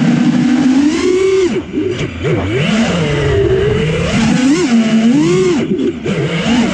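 Brushless motors and 4.9-inch props of a 4S FPV quadcopter whining in flight. The pitch swoops up and down with the throttle, and the sound dips briefly twice, about two seconds in and again near six seconds.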